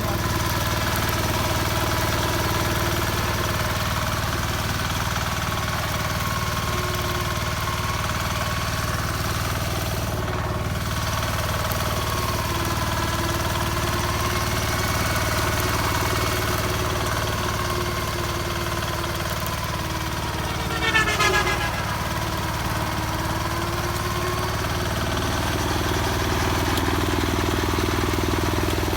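Diesel engine of a Kawasaki BM91 rotary disc brush mower running steadily at idle, its pitch wavering slightly, with a brief louder rising-and-falling sweep about two-thirds of the way through.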